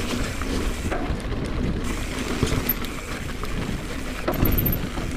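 Wind buffeting the microphone over the rumble and rattle of a 2019 Transition Smuggler 29er mountain bike riding fast down a trail, with scattered knocks as the tyres and frame take bumps.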